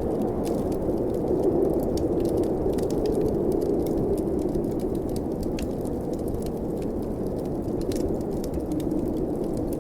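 Blizzard wind howling steadily, a low rushing that swells and eases, with the frequent small pops and crackles of a wood fire in a fireplace over it.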